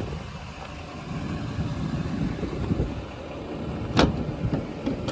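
A steady low rumble, with one sharp metallic click about four seconds in as the paddle latch of a truck body's side toolbox compartment is released.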